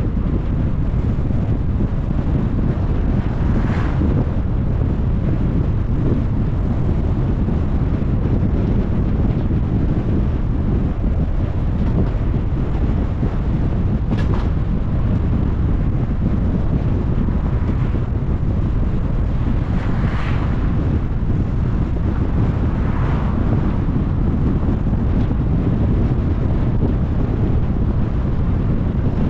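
Steady low rumble of wind buffeting the microphone, mixed with road noise from a moving car, with a few brief hissing swells along the way.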